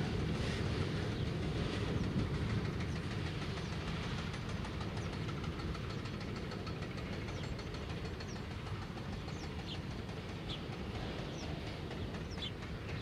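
Electroputere 060-DA diesel-electric locomotive's engine rumbling steadily as it hauls a freight train of open wagons past and away, the sound slowly fading. Faint bird chirps come in over the second half.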